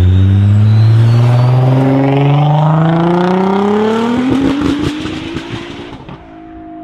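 Modified car's engine and exhaust accelerating hard, its note climbing steadily for about four seconds. A rapid run of sharp cracks and pops follows, and the sound then drops away.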